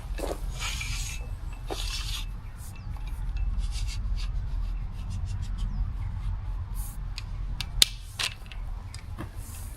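Manual pole saw blade rasping through a tree branch: two long scratchy strokes, then shorter scrapes and clicks of the blade working in the cut, with one sharp crack about eight seconds in.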